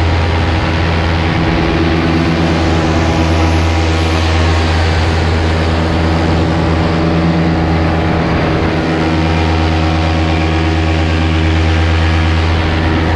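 Paramotor engine and propeller running steadily at cruise power, one even drone that holds its pitch with slight wavering.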